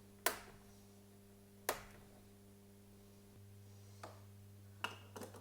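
A few sharp plastic clicks and knocks as the power strip is handled: two distinct ones in the first two seconds and softer ones near the end, over a steady low hum.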